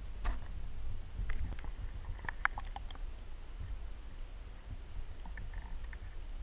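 Underwater sound of a lake bottom: a steady low rumble with a scatter of small clicks and ticks, most of them in the first three seconds.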